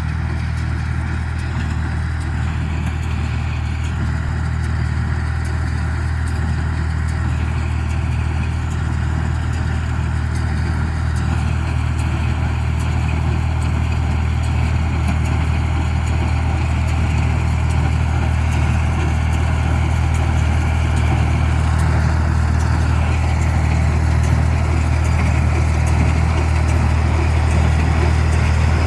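John Deere 336 square baler running, together with the engine that drives it: a steady low engine drone with a mechanical clatter over it, unchanging throughout.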